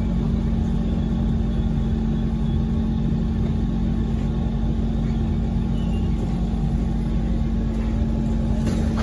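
Cabin noise inside a Kawasaki Heavy Industries C151 MRT train: a steady rumble with a constant low hum as the train pulls into a station.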